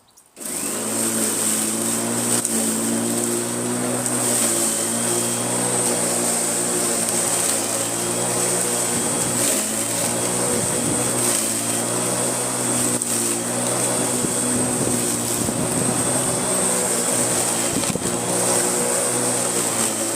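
Electric Flymo Visimo lawnmower switching on about half a second in, then its motor and blade running steadily with a high whine: the mower working again after its power cord was replaced.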